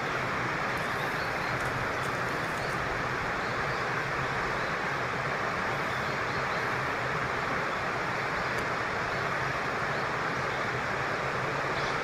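Steady, even rushing of flowing stream water.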